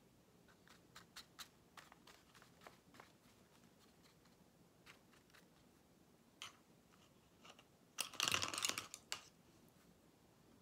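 Light taps and clicks of a paintbrush being flicked to spatter red watercolour drops onto paper, then a louder clatter lasting about a second near the end.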